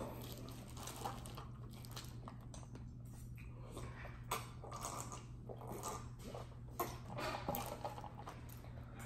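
Close-up mukbang eating sounds: a person chewing seafood boil, with scattered crinkles of plastic gloves and a plastic bag, over a steady low hum.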